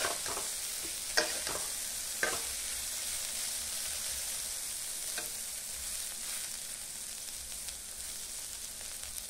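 Drumstick pieces and onions sizzling as they fry in a metal kadhai, with a steady hiss, while a metal spatula turns them, knocking and scraping against the pan a few times in the first half and once more around the middle.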